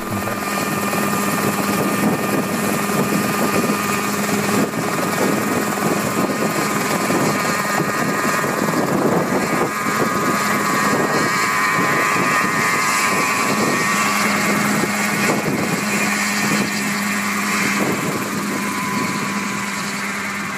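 Mosquito single-seat ultralight helicopter running steadily, engine and rotor heard as it hovers just above the ground and then flies off, growing slightly fainter near the end.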